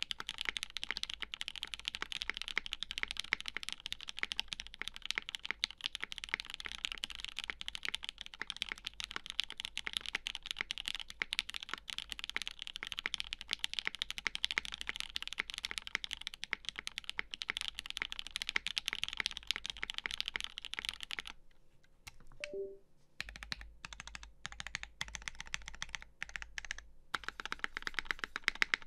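Fast, continuous typing on a custom mechanical keyboard with lubed Gateron Ink switches on a UHMWPE plate and GMK Shoko keycaps, a dense run of key clicks. The typing stops for about a second and a half roughly two-thirds of the way through, then starts again.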